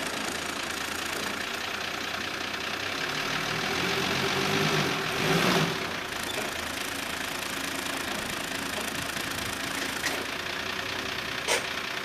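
Nissan Y60 Safari's diesel engine running as the truck creeps its front wheel up onto wooden ramps, growing louder to a peak about five seconds in as the wheel climbs, then running steadily. A sharp click is heard near the end.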